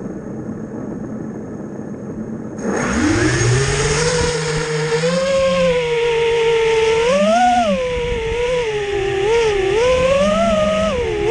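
FPV quadcopter's four BR2205 2300KV brushless motors and propellers. After a steady hiss, the motors spin up sharply about three seconds in into a rising whine. The pitch then swings up and down over and over as the throttle is worked in flight.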